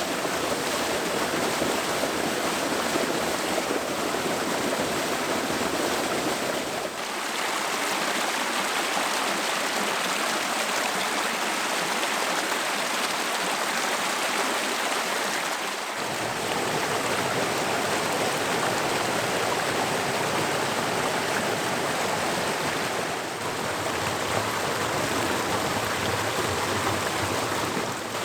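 Steady rushing of water running and falling at a creek waterfall. The sound shifts abruptly about a quarter of the way in and again about halfway, losing and then regaining its lower rumble.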